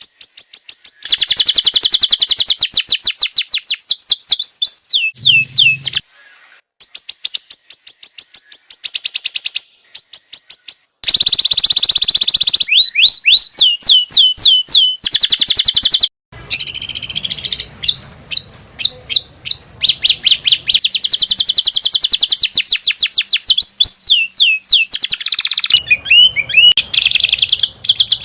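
Loud songbird song of the kind used as masteran, training song for caged songbirds: long fast trills broken by runs of quick downward-slurred whistles, in phrases separated by a few short silent gaps.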